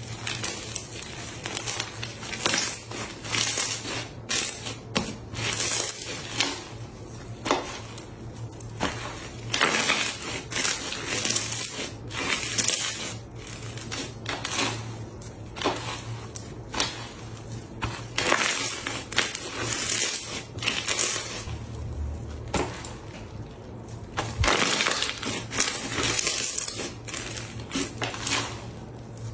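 Cup slime being pressed and worked, giving bursts of crackling pops and crunches that come and go every second or two.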